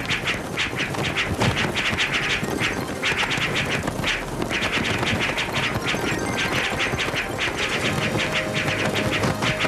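A rapid flurry of martial-arts fight sound effects, strikes and whooshes coming several times a second with only brief breaks.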